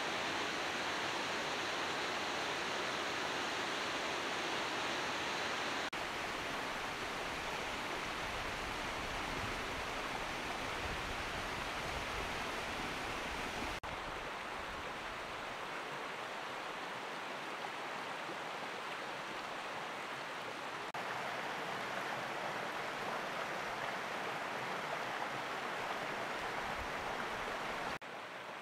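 Flowing water in several recordings one after another, each a steady, even rush of noise. The sound changes abruptly about every seven seconds as one stretch of water gives way to the next.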